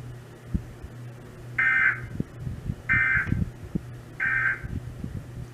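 Emergency Alert System end-of-message code: three short buzzy bursts of SAME digital data, each about half a second long and about a second apart. They signal that the alert, here the Required Monthly Test, is over.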